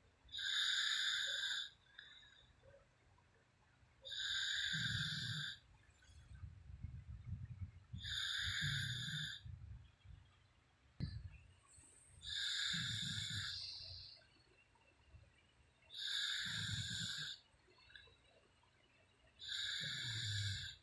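A sleeping woman snoring, six hissing breaths about four seconds apart, each lasting about a second and a half, some with a low rumble.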